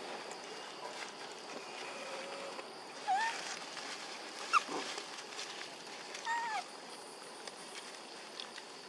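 Long-tailed macaques giving a few short, high calls that bend in pitch: one about three seconds in, a sharp rising one a moment later, and another past the middle.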